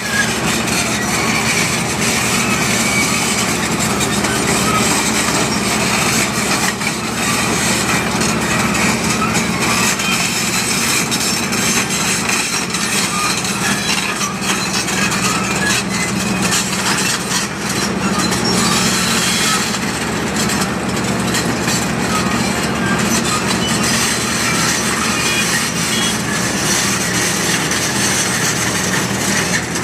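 Tracked surface drill rig moving over broken rock: its diesel engine runs steadily under load while the crawler tracks clank and grind over the rock, with many small knocks throughout.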